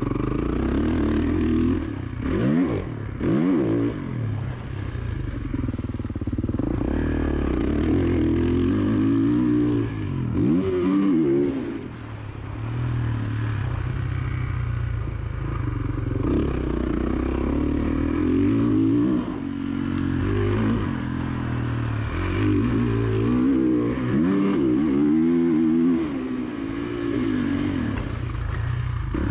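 Dirt bike engine revving on a lap of a dirt track, its pitch climbing and dropping again and again as the rider accelerates, shifts and rolls off the throttle.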